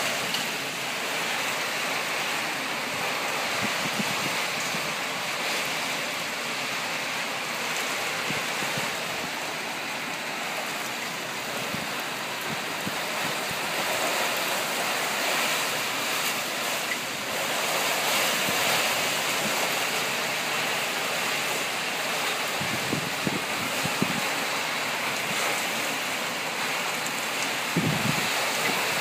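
Heavy rain pouring steadily in gusty wind, a constant even rush of water.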